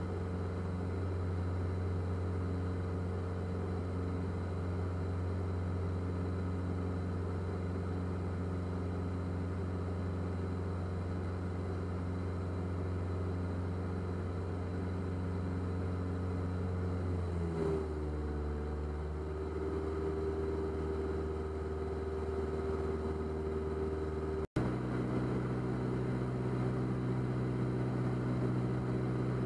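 Diamond DA40's piston engine and propeller droning steadily, heard from inside the cockpit. About two-thirds of the way through, the drone slides down to a lower pitch. A few seconds later the sound cuts out for a split second.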